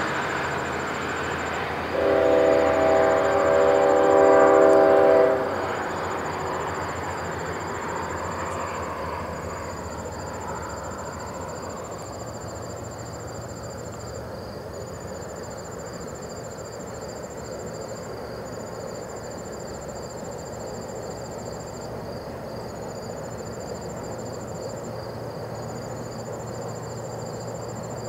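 A departing freight train's locomotive horn sounds one long blast about two seconds in, while the train's rumble fades away over the following several seconds. Insects chirr steadily in a high pulsing trill throughout.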